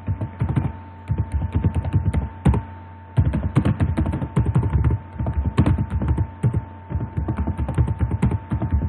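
Computer keyboard typing in quick, irregular runs of keystrokes, with a short pause about three seconds in, over a steady electrical hum.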